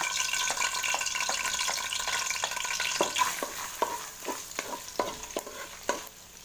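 Minced garlic sizzling as it hits hot oil in a wok and is sautéed to toast it. About halfway in, the sizzle thins and a spatula scrapes and taps against the wok about twice a second as the garlic is stirred.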